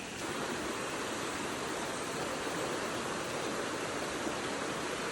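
Steady rushing of a river flowing over rocks and small falls.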